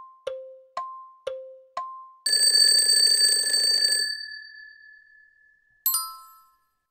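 Countdown-timer sound effects: a clock tick-tock, two ticks a second alternating high and low, ends about two seconds in with a loud alarm bell ringing for under two seconds, its tone fading out. Near the end a short chime sounds as the answer is revealed.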